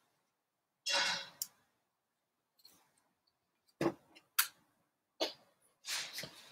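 Handling and movement noises close to the microphone: a short rustle about a second in, then several sharp clicks and knocks, spaced out, as a person gets up and moves about.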